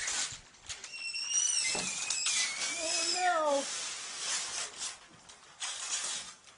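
Gift wrapping paper being ripped and crumpled as it is pulled off a large cardboard box, with a young child's high-pitched squeals in the first half.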